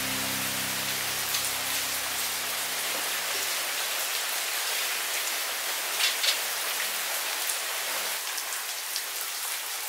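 Steady rain falling on a paved yard, an even hiss, with a couple of light knocks about six seconds in.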